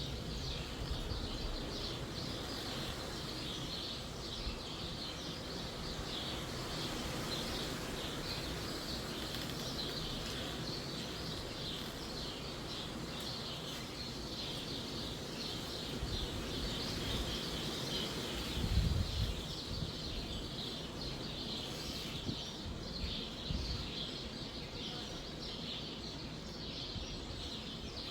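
Many small birds chirping continuously in a dense chorus, with wind gusting against the trees and microphone as low rumbling surges, the strongest a little past halfway.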